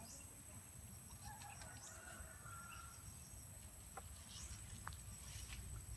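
Quiet outdoor background with faint distant bird calls, like a hen clucking, from about one to three seconds in, and a few light clicks later.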